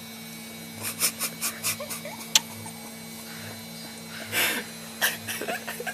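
A small child eating lemon: a run of short wet lip-smacks and mouth clicks about a second in, a single sharp click a little later, and a short breathy sound about four and a half seconds in.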